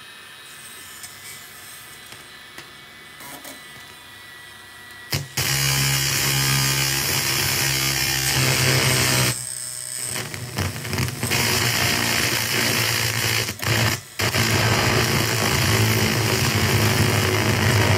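Harsh electronic noise from a circuit-bent VHS video recorder: a faint buzz at first, then about five seconds in a loud wall of hiss over a low hum starts suddenly, cutting out briefly a few times.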